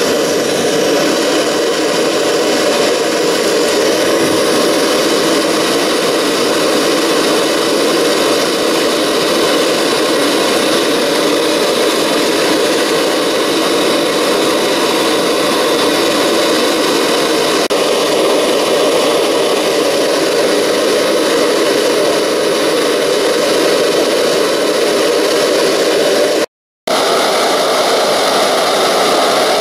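Sievert propane gas torch with a standard burner firing into a thermalite-block gas forge: a loud, steady rush of burning gas as it heats the forge chamber to red heat. The sound breaks off for a moment near the end.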